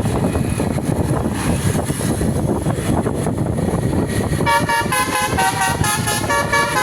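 Bus basuri ("telolet") musical horn playing a quick tune of short notes in changing pitches, starting about two-thirds of the way in, over a steady low rumble.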